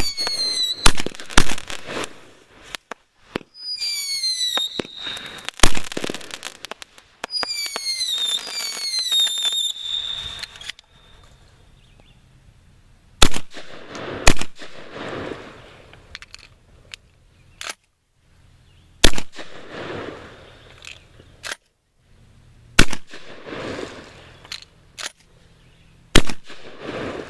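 Aerial firework cake firing its shells with high whistles that fall in pitch and sharp bangs, mixed with blasts from a Benelli M4 12-gauge semi-automatic shotgun firing birdshot. In the second half, the whistles stop and about half a dozen loud shots come a few seconds apart, each trailing off in an echo.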